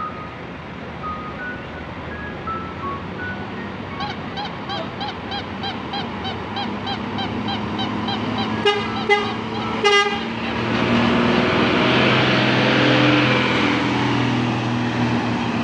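Bus 'telolet' musical horn playing a repeating warbling tune, about three warbles a second, then three loud horn blasts around nine to ten seconds in. After the blasts the bus engine runs louder with a rushing hiss as the bus moves off.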